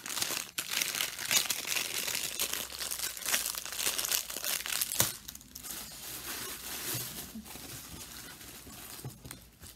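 Thin clear plastic bag crinkling and rustling as it is handled, with a small keychain slipped back into it. Loudest and busiest for the first five seconds, then quieter, sparser rustling.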